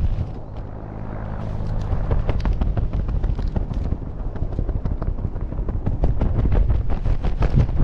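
Wind buffeting the microphone of a helmet camera under an open parachute, a low rumble with many quick crackles and flaps from the canopy fabric and lines.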